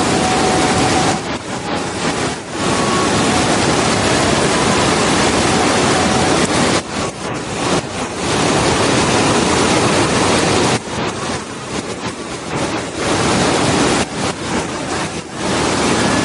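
Waterfall: a loud, even rush of falling water that dips briefly several times.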